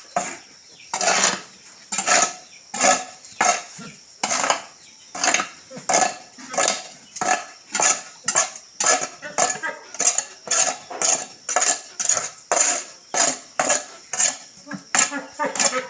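Repeated short scraping strokes, about two a second, from a cleaning tool worked over the floor of a pig pen.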